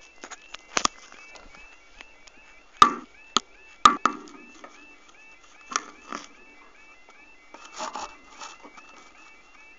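Level crossing warning alarm warbling in a steady, evenly repeating pattern. Several sharp knocks sound close to the microphone, the loudest about three and four seconds in.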